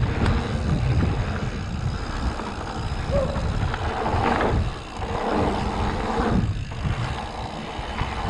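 Wind buffeting the on-board camera microphone, mixed with the rumble and rattle of the bike on a rough dirt trail during a fast descent.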